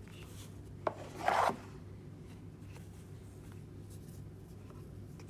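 Watch packaging being handled: a sharp click, then a brief zipper-like rasp of packaging being pulled open.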